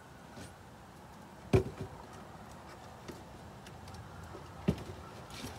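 Two sharp thumps about three seconds apart, the first one the louder, over a faint steady background.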